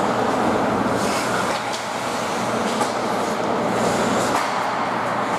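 Ice hockey play in a rink: steady scraping noise of skates on the ice over a low, steady hum, with a few faint clicks from sticks or puck.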